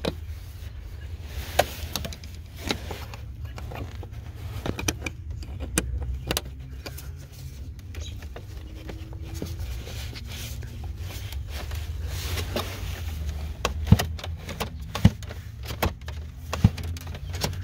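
Scattered plastic clicks, taps and knocks from glove-box and cabin-filter-housing parts being handled and fitted, over a steady low hum.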